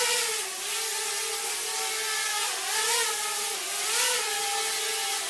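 Xiaomi MITU quadcopter's motors and propellers whining steadily in flight, the pitch rising and falling slightly as the throttle changes.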